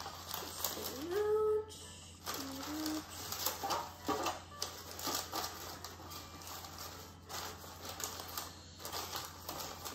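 Parchment paper crinkling and rustling in irregular bursts as it is pressed and folded into a metal loaf pan, with light taps of paper against the pan. A couple of short pitched tones sound in the first three seconds, the loudest near the start.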